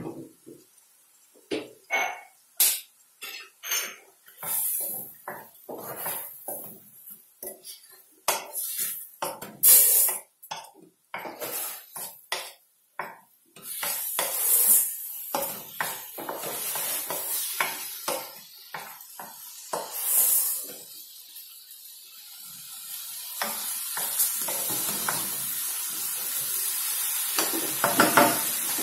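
Wooden spatula scraping and knocking against a wok while stirring food in it. From about halfway a sizzle of frying comes in and grows steadily louder.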